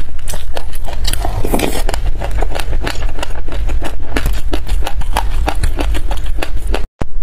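Close-miked chewing of a mouthful of sesame seeds: dense, irregular crunching and crackling clicks over a low rumble, broken by a moment of dead silence near the end.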